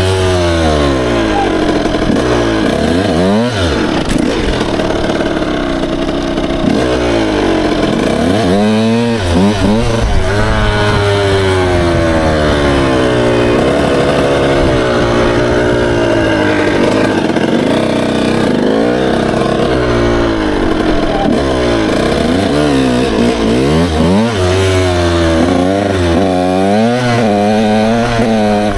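Dirt bike engine under riding load, revving up and dropping back again and again as the throttle is worked and gears change, its pitch rising and falling every few seconds.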